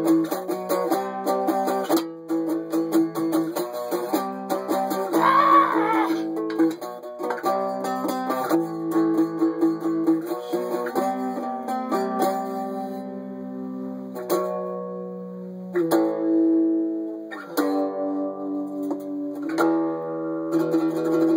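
Guitar riff played solo: a quick run of single notes and chords, with some notes held and left ringing.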